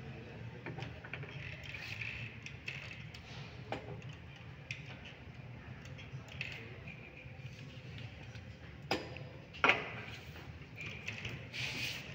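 Scattered light clicks of plastic chess pieces set down on the board and a chess clock being pressed, with two sharper knocks close together later on, over a low steady hum.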